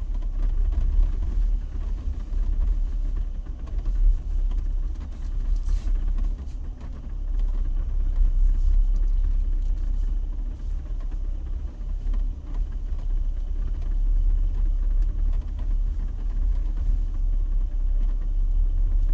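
A Jeep running with a low, uneven rumble.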